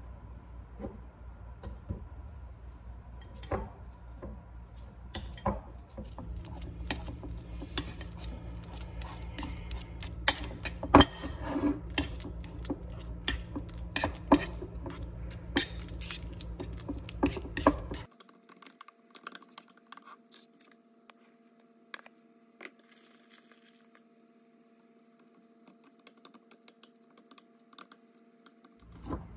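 Metal fork tapping and scraping against a bowl while mashing ripe bananas and then stirring in rolled oats: many sharp clicks, densest and loudest in the middle. A steady low hum runs under the first two-thirds and cuts off suddenly, leaving fainter, sparser taps.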